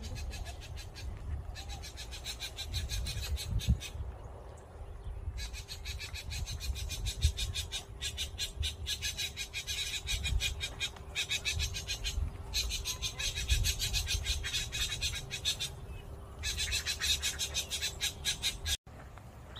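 Insects trilling: a high, rapid pulsing buzz in repeated bouts of two to three seconds with short pauses, over a low rumble.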